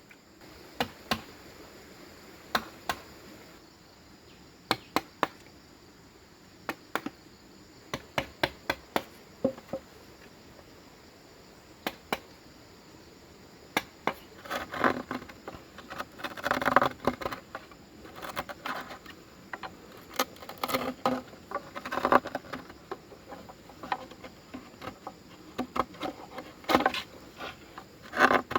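Bamboo being struck with a hand tool: sharp knocks in short quick runs, turning into denser clattering strikes about halfway through. A steady high insect drone runs behind them.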